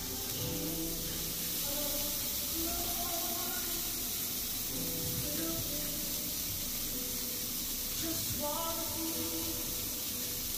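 Tofu and vegetable kabobs sizzling on an electric indoor grill: a steady hiss.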